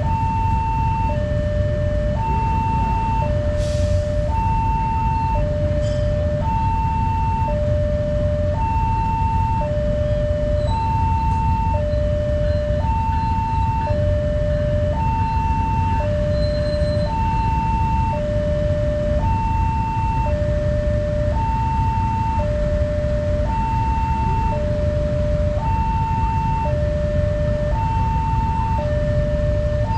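Railway level-crossing warning alarm: an electronic two-tone chime alternating a higher and a lower tone, each about a second long, repeating steadily over a low rumble. It signals that the crossing is closed for an approaching train.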